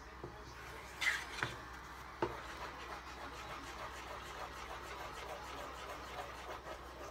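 Wooden spatula stirring thick pancake batter in a metal saucepan: a soft, steady scraping, with three sharp knocks of the spatula against the pan in the first couple of seconds.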